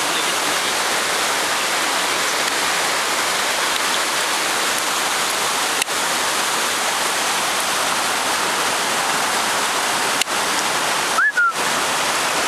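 Rushing water of a stream cascading over rock ledges, a steady unbroken rush, with a few very brief dropouts in the recording.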